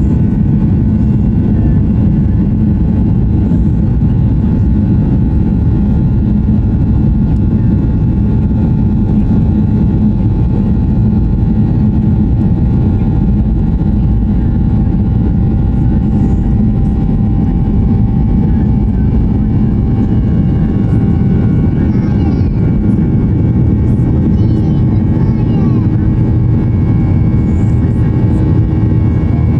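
Boeing 737-800's CFM56-7B26E turbofan engines at takeoff thrust, heard from the cabin during the takeoff roll and lift-off: a deep steady rumble with steady whining fan tones over it.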